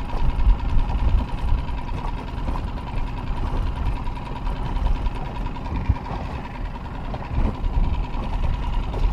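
Boat motor running steadily as a low rumble, with a thin steady whine above it.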